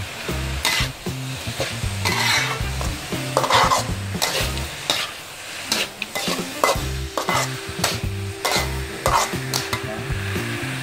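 Metal spatula stirring and scraping meat and spice paste around a wide metal wok, with a light frying sizzle. The scrapes come as separate strokes, several a few seconds apart.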